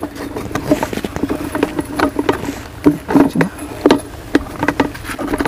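Irregular clicks and knocks of plastic parts as the plastic wheels of a KSNM drum seeder are fitted onto the ends of its rods during assembly.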